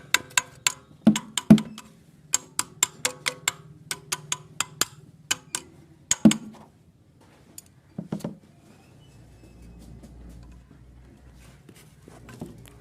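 A rapid, uneven series of sharp knocks, several a second, stopping about six seconds in, then a short cluster of heavier knocks and a faint low hum.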